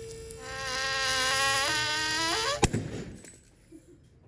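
A buzzing whine builds as the hydraulic puller loads a glue-in ring bolt sideways, stepping up in pitch near the end. It ends in one sharp, loud crack as the bolt tears out of the concrete.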